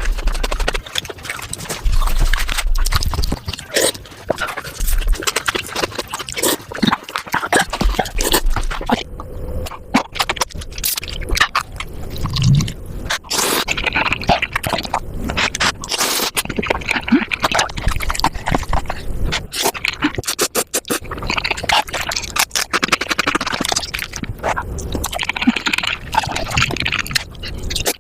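Eating sounds played back at about five times speed: chewing, crunching and slurping of food sped up into a fast, dense chatter of clicks and crackles.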